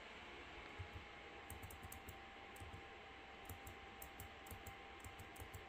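Faint, irregular clicking at a computer as trail-camera pictures are clicked through, coming in quicker runs in the second half.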